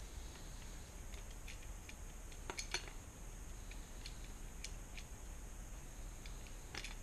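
Scattered light clicks and taps of a Lamson Waterworks Liquid fly reel being handled and fitted into a fly rod's reel seat. The louder clicks come a little under three seconds in and again near the end.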